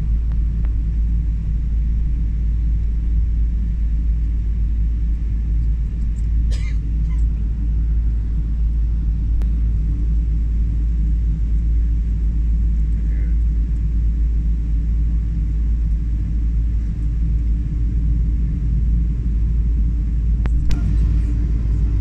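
Cabin noise inside a taxiing Boeing 777: a steady low rumble from the engines and the wheels rolling over the taxiway. A faint click comes about six and a half seconds in and another near the end.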